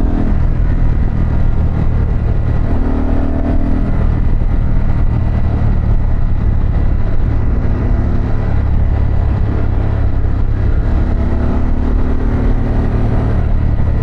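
Harley-Davidson Pan America's Revolution Max 1250 V-twin engine and exhaust under way on a winding descent, with the revs rising and easing off several times.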